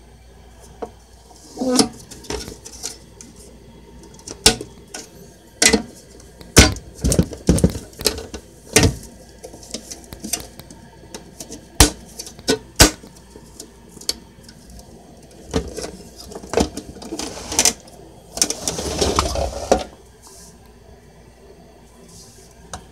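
Small hard objects being handled: irregular clicks, knocks and light rattles, with a longer scraping rustle about eighteen seconds in.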